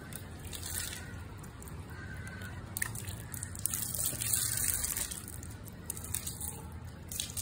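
Water dripping and splashing during a dog's bath, with a few small scattered clicks.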